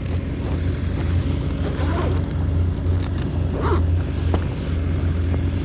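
Steady low engine drone with a held hum, and a few faint brief sounds over it.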